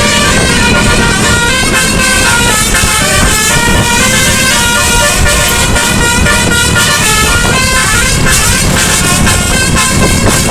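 A bus's nine-trumpet telolet musical air horn playing a quick tune of stepping notes, over a continuous low rumble.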